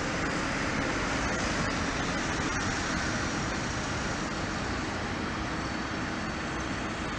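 Steady road and engine noise of a moving road vehicle, heard from inside it.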